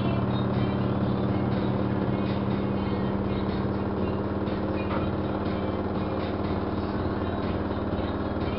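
LG front-load washing machine running its spin cycle: a steady motor and drum hum that holds at an even pitch, with faint light ticking over it.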